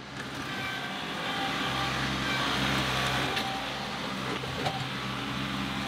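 John Deere 2038R compact tractor's three-cylinder diesel running steadily while it works its front loader, with a couple of light knocks a few seconds in.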